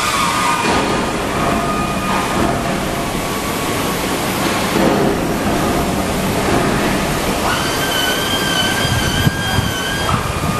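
Steady, loud running of metal-polishing or grinding machinery working stainless steel. A high, steady squeal comes in about three-quarters of the way through.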